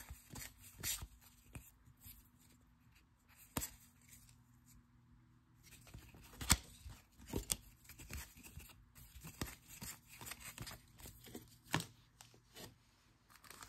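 Baseball trading cards being handled and flipped through: faint scattered flicks and rubs with a few sharper clicks.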